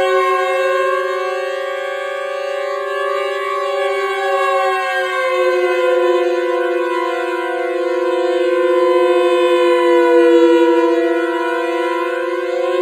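Siren Head's call: a loud, sustained civil-defence-style siren tone sounding several pitches at once, wavering slightly and swelling a little louder about eight to ten seconds in.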